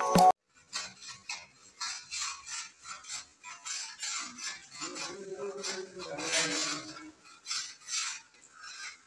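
Hand paint scraper scraping old, flaking paint off a plastered wall in repeated short strokes, a few a second. A music jingle cuts off just after the start.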